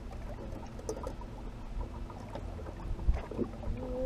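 Water lapping and patting against the hull of a fishing boat under a low rumble, with scattered small clicks and a single sharp knock about three seconds in.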